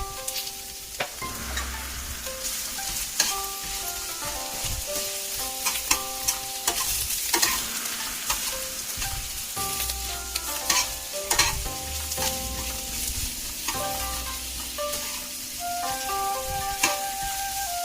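Vegetables stir-frying in hot oil in a pan: a steady sizzle, with frequent clicks and scrapes of the utensil stirring them. Background music with sustained melodic notes plays over it.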